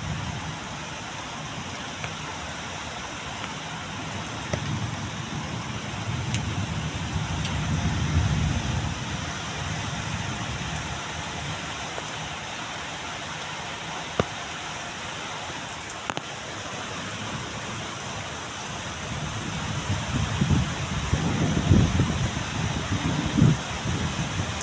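Steady rain falling, with low rumbles swelling up about a third of the way in and again near the end, and a few sharp ticks.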